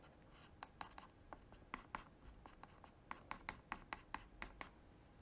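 Palette knife dabbing and scraping thick acrylic paint onto watercolour paper: a quick run of short, faint scratchy strokes that stops about a second before the end.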